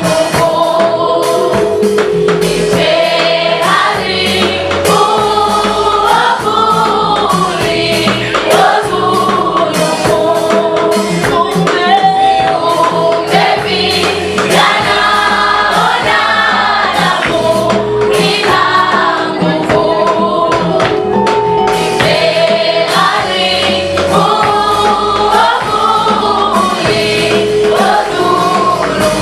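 A choir singing a gospel song in Swahili, with bass and percussion backing.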